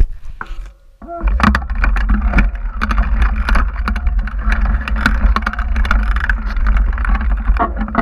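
Mountain bike ridden fast down a rough dirt and rock trail: wind buffeting the camera's microphone as a heavy rumble, with tyre noise and a dense clatter and rattle of the bike over the ground. It drops away briefly about a second in, then carries on.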